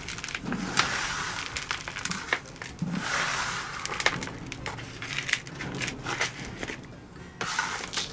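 Sandy potting mix of sand, leaf mould and compost poured from a plastic bucket into a plastic pot, a gritty hissing pour in several surges with small clicks of grit and bark bits striking the pot.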